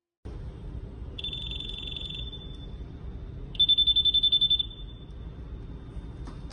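PD140 handheld metal detector sounding its high-pitched alarm as it is passed over small metal items, signalling that it has detected metal. It gives a steady tone about a second in, then a louder, fast-pulsing tone of about ten beeps a second near the middle.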